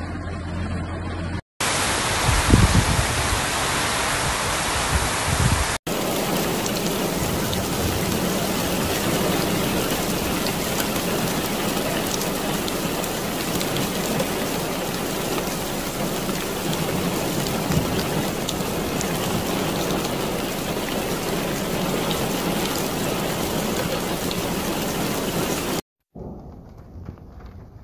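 Heavy rain pouring steadily, with a low rumble of thunder about two to five seconds in. The sound breaks off abruptly a few times where clips are joined, and the rain is quieter in the last couple of seconds.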